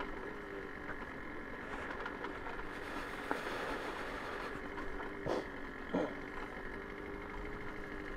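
Babetta 210 moped's 50 cc two-stroke single-cylinder engine running steadily while riding along a dirt forest track, with three short knocks, the loudest about five and six seconds in.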